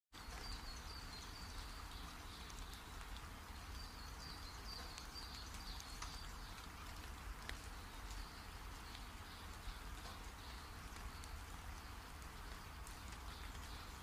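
Outdoor ambience: a steady hiss over a low rumble, with faint high chirps repeating in short runs and a few light ticks.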